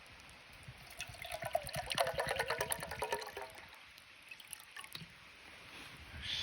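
Water being poured into a container, starting about a second in and stopping after roughly three seconds.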